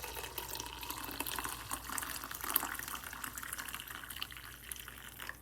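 Hot coffee pouring from a glass coffee-maker carafe into a cup: a steady trickling stream of liquid that fades near the end.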